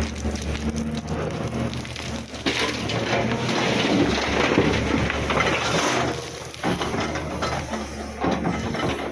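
Hydraulic excavator bucket digging into rocky soil, with stones and earth crunching and scraping, heaviest for a few seconds mid-way, over the diesel engine running underneath.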